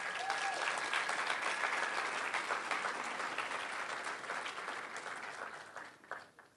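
Audience applauding, the clapping tapering off and stopping near the end.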